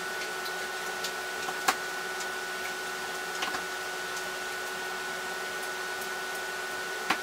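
Steady hum of workshop machinery with a faint high whine. A few light clicks come from the metal soft-plastic injector against the aluminium lure mold as the hot plastic is injected, the sharpest near the end.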